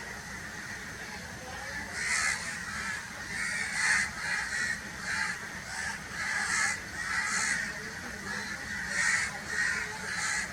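Crows cawing: a string of about a dozen short, harsh caws at irregular intervals, starting about two seconds in.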